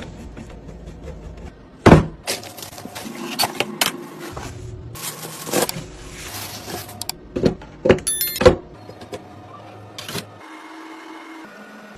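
Irregular clicks, knocks and rattles of computer parts being handled and fitted, with a brief hiss about five seconds in and the loudest knocks about two and eight seconds in.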